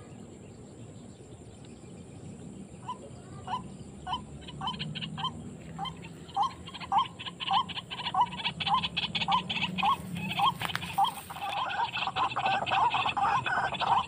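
White-breasted waterhen calls played as a trapping lure: a single call repeated starting about three seconds in, coming faster and louder, then turning into dense, overlapping calling near the end.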